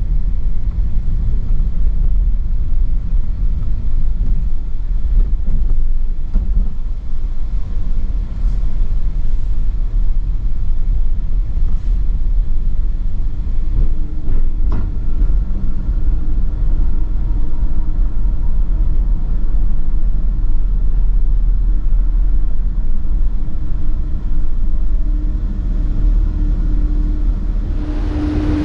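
Loud, steady low engine rumble. A faint steady hum joins in about halfway through.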